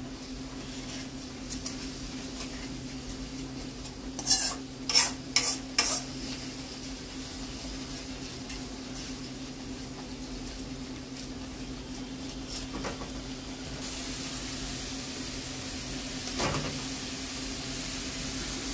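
Steel spoon stirring and scraping a thick spice masala frying in a metal kadai, with a low sizzle. The spoon clanks sharply against the pan four times about four to six seconds in and once more near the end, and the sizzle grows louder from about fourteen seconds in.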